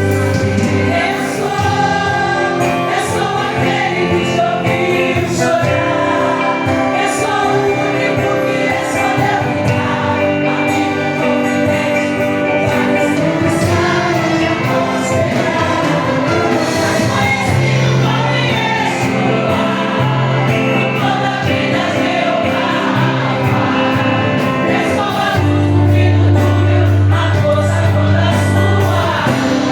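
Gospel music: a choir singing over instrumental backing, with sustained bass notes underneath.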